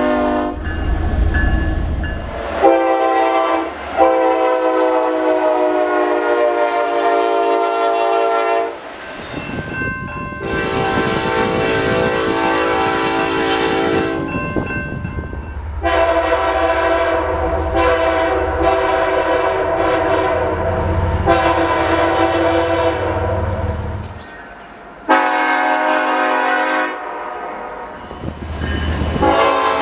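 Nathan Airchime multi-chime locomotive air horn sounding a series of long, loud blasts, with one short blast near the end, over the rumble and clatter of a passing train.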